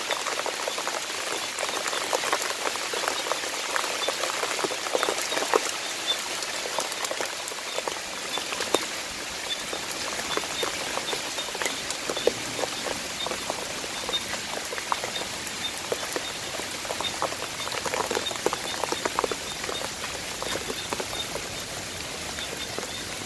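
Heavy rain falling steadily, with many separate close drop hits, and a faint high chirp repeating all through.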